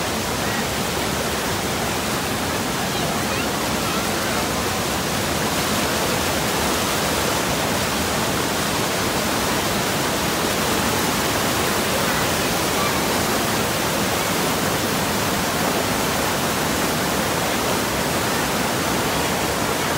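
White-water river rapids rushing over rocks, a steady loud rush of water.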